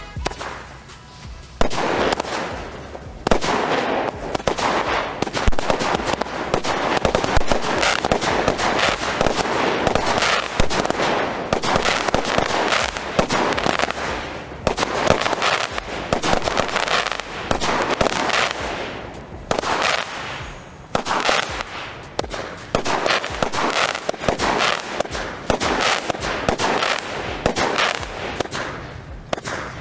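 160-shot consumer firework compound battery (NICO Dragons Breath) firing: a rapid, near-continuous string of launch thumps and crackling bursts, starting about a second and a half in, with brief lulls around two-thirds of the way through.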